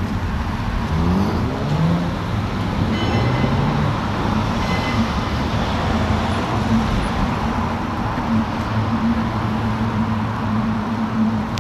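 City road traffic passing close by, heard from a moving bicycle, as a steady rush of noise. About a second in, a vehicle's engine rises in pitch as it pulls away, and a low engine hum carries on through the rest.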